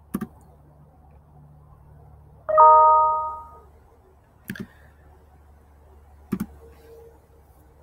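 A bell-like chime rings once about two and a half seconds in, several tones struck together and fading out over about a second. Short mouse clicks come at the start and twice more in the second half.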